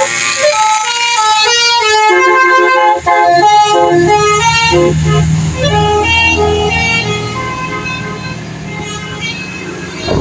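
Bus telolet horn playing a quick tune of stepping notes, joined about four seconds in by a low engine rumble as the vehicle passes.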